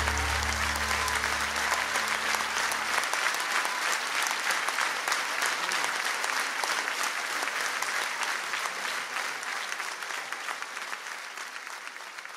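Audience applauding, the clapping slowly fading. The last held low notes of music die away about three seconds in.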